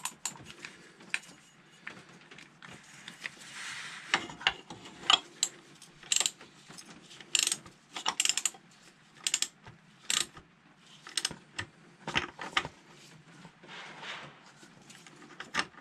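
Irregular sharp metallic clicks and knocks with soft rubbing between them: a new motorcycle oil filter being threaded on by hand, then a ratchet fitted with a filter cup wrench clicking as it is snugged up.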